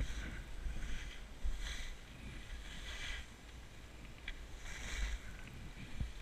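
Skis carving and scraping across packed, groomed snow through a series of turns, a swish with each turn about once a second, over a low rumble of wind on the microphone.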